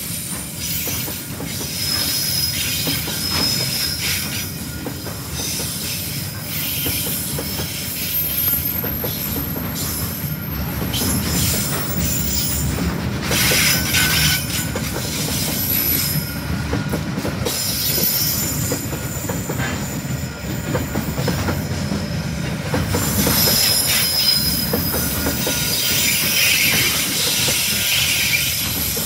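Loaded freight wagons carrying shipping and tank containers rolling past at close range: a steady rumble of steel wheels with clicks over the rail joints, and a high wheel squeal that comes and goes.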